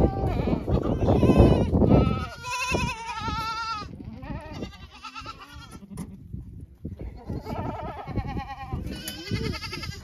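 Young goats bleating at feeding time: a run of wavering calls, several overlapping, from about two seconds in and again near the end. A loud low rumble fills the first two seconds.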